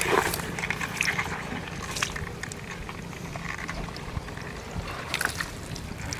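Irregular splashing and rustling of hands working through water and mud, louder about two seconds in and again near the end.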